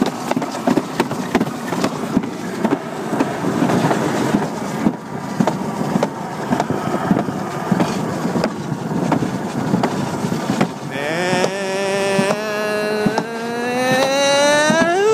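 Alpine slide sled running fast down its track: a steady rumble and rattle with many small knocks. From about eleven seconds in, a high tone rises steadily in pitch and grows louder to the end.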